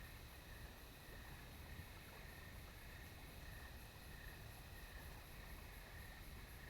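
Near silence: faint night ambience with a low rumble and hiss, and a faint high chirping repeating evenly about twice a second.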